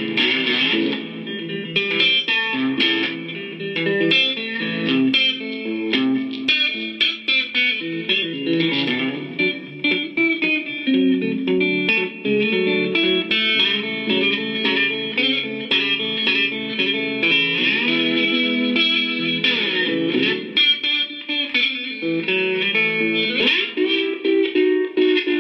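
Instrumental background music: a melodic tune of quick notes, with the notes sliding in pitch in places.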